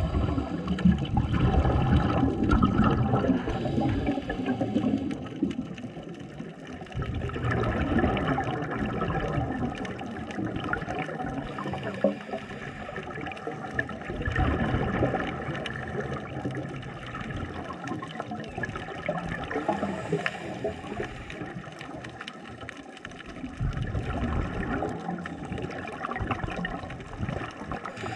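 Underwater water noise, a gurgling and bubbling that swells and fades every several seconds.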